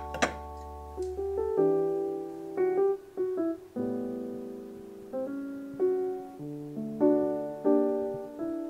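Background instrumental music: a slow, gentle keyboard melody played note by note. A single sharp click sounds just after the start.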